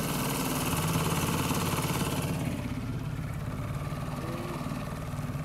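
Boat motor running steadily at speed, with a broad hiss over it that fades after about two and a half seconds.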